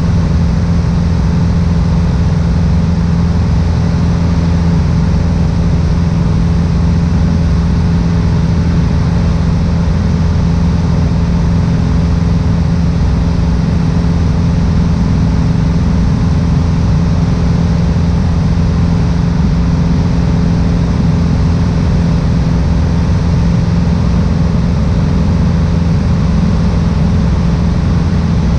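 Piper Warrior II's four-cylinder Lycoming engine and propeller running steadily in flight, a constant drone heard from inside the cabin.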